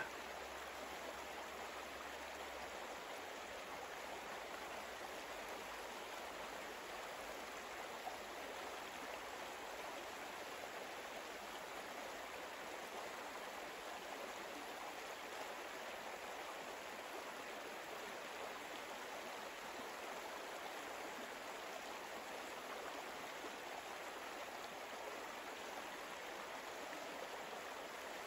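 Faint, steady rushing noise like a flowing stream, an even water-like hiss with no tune or rhythm.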